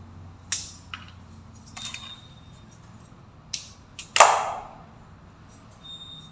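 Scattered sharp clicks and knocks of hand tools and a metal LED-strip channel being handled and fitted under a stair step. The loudest is a sharp knock with a short ringing tail about four seconds in.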